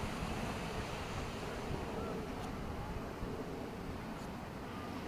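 Beach ambience: wind rumbling on the microphone over a steady wash of surf.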